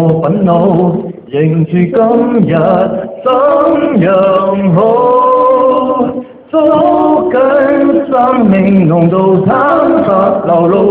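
A man singing without accompaniment into a microphone over the stage sound system, in long held notes broken by short pauses for breath.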